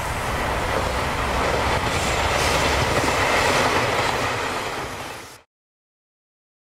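N-gauge model train running on its track close by: a steady running noise of wheels and motor that fades out about five seconds in.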